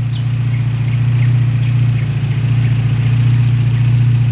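Turbocharged Mitsubishi Lancer's engine idling steadily and evenly, with a strong low hum.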